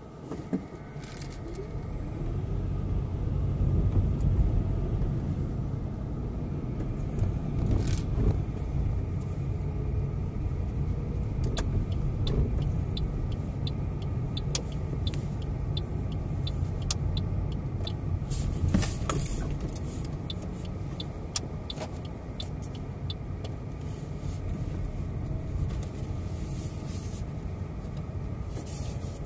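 Car being driven: a steady low rumble of engine and road noise that grows louder over the first few seconds, with scattered light clicks and rattles.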